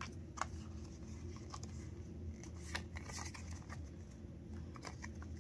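Pokémon trading cards being handled and flicked through by hand, with scattered light clicks and rustles over a low steady hum.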